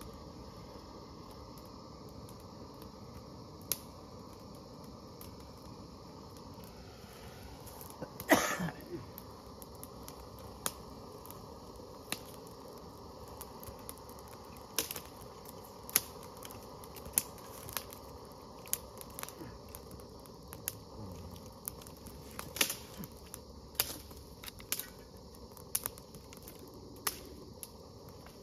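A small twig fire crackling, with sharp single pops about once a second as it catches. One short, loud squeak sliding down in pitch sounds about eight seconds in.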